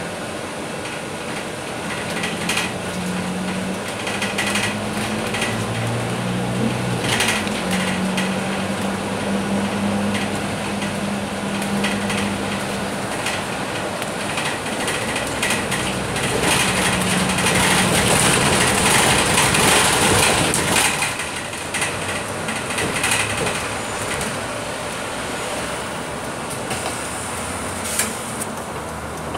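Interior ride noise of a Scania K310UB city bus, its five-cylinder diesel engine note shifting up and down in pitch over the first half. A loud hissing rush lasts several seconds past the middle, and a sharp click comes near the end.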